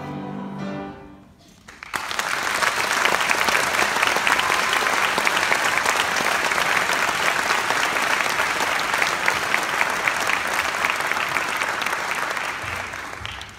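A choir's last held chord fades out in the first second or so. The audience then breaks into steady applause that dies away near the end.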